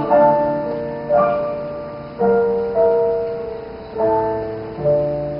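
Piano playing a slow series of six chords, each struck and left to ring and fade before the next.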